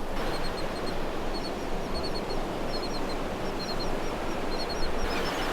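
Steady noise of surf and wind on the beach, with a run of short, high squeaks or chirps that come in twos and threes every half second or so.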